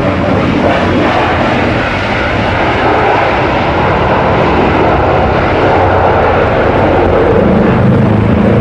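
Boeing 737-800's CFM56-7B jet engines running loud and steady as the airliner rolls out on the runway after landing, ground spoilers raised. A low hum comes in near the end.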